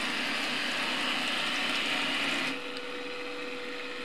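A model boat's small motor whirring loudly as it drives the boat through the water, with water churning. About two and a half seconds in, it drops to a quieter, steady hum.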